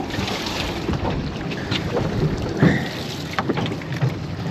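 Wind buffeting the microphone over the steady noise of a fishing boat at sea, with a few short knocks.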